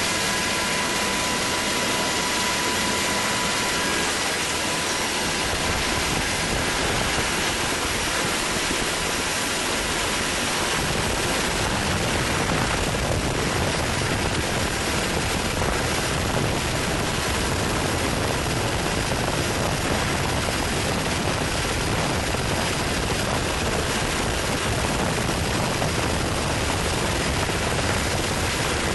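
A military helicopter's turbine engines and rotor running at a hover, heard from inside the cabin at the open side door: a steady, loud rushing noise. A faint high whine fades out in the first few seconds.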